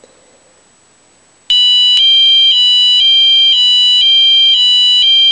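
Wheelock MT24-LSM fire alarm horn sounding its high-low tone: a loud, shrill electronic tone alternating between two pitches about every half second. It starts abruptly about a second and a half in.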